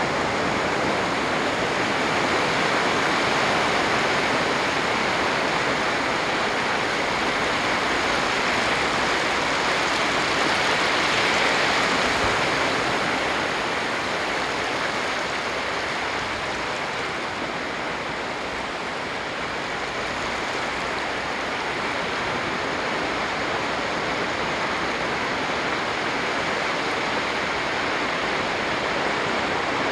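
Sea surf washing onto a beach in a steady, unbroken rush of water. It swells slightly a little before the middle and eases a few seconds later.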